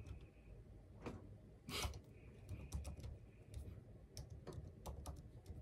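Typing on a computer keyboard: faint, irregular key clicks as a short phrase is typed, with one louder noise just under two seconds in.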